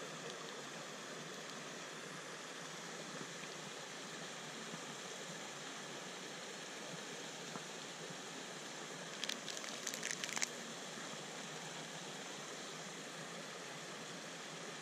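Steady rushing of a swollen creek, with a short run of light clinks about nine to ten seconds in as a spoon stirs coffee in a stainless steel mug.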